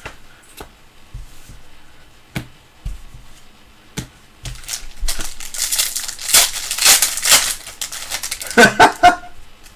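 A few light clicks and taps, then a trading-card pack's foil wrapper crinkling loudly for about four seconds as it is torn open and handled.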